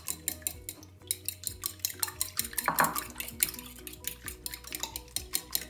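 A fork beating egg and milk in a ceramic bowl, clinking against the bowl in a quick, steady rhythm.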